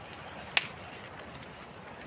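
A single sharp click about half a second in, over faint steady background hiss.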